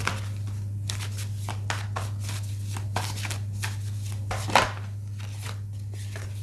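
A deck of tarot cards being shuffled by hand: a run of quick flicks and taps that stops about four and a half seconds in, over a steady low hum.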